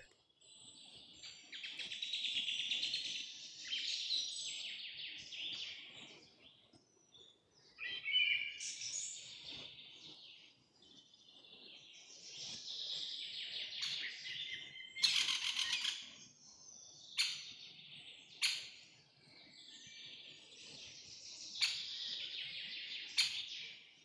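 Songbirds chirping and trilling in phrases that come and go, with a few short, sharp notes standing out about halfway through and again near the end.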